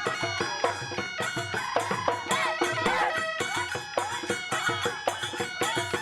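Instrumental Assamese folk music: a wind-instrument melody with bending, held notes over frequent drum strokes.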